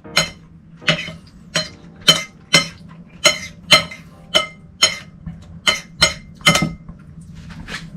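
A metal utensil clinking repeatedly against a bowl while mixing, about two irregular strikes a second, each with a short ring.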